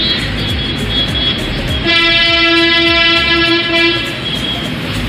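A horn sounds one long, steady-pitched blast of about two seconds, starting about two seconds in, over a low rumble of road traffic.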